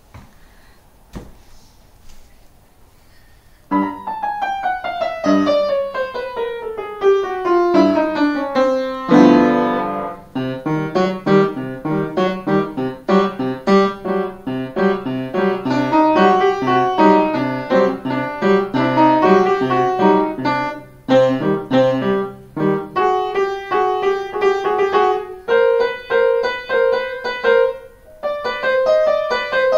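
Upright piano played by a child still learning the piece, not yet perfectly. After about four seconds of quiet it starts with a falling run of notes, then goes on as a steady stream of short notes with a few brief breaks.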